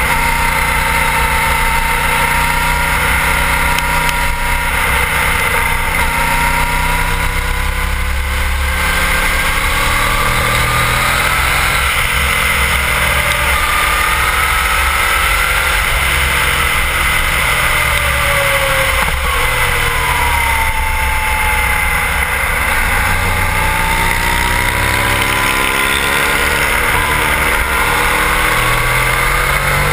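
Sport bike engine running at speed on a racetrack, its pitch rising and falling several times with throttle and gear changes, under heavy wind rumble on the bike-mounted camera's microphone.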